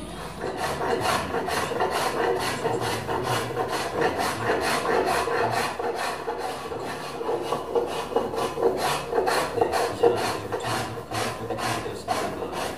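Walnut chair seat being smoothed by hand: rapid, even back-and-forth rasping strokes across the wood, about three a second.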